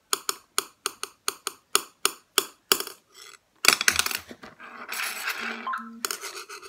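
Quick, even tapping on a ceramic bowl, about four knocks a second for some three seconds, then a longer stretch of bowls rattling and scraping on the table.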